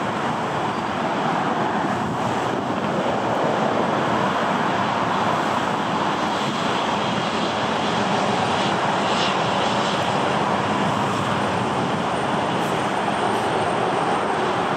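Embraer E195's twin turbofan engines running at taxi power as the jet rolls past: a steady rushing noise that changes little.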